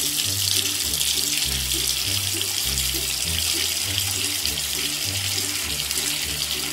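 Tap water running steadily into a bathtub, a hiss that starts suddenly, over background music with a repeating bass line.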